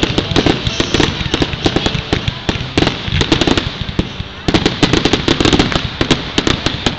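Fireworks going off in rapid succession: a dense, continuous crackling and popping of many small reports, easing slightly near the end.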